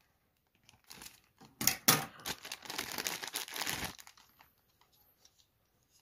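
Thin clear plastic toy bag crinkling and rustling as it is torn open and the toy is pulled out: a run of sharp, crackly rustles from about a second in, loudest near two seconds, dying away to faint handling noises after about four seconds.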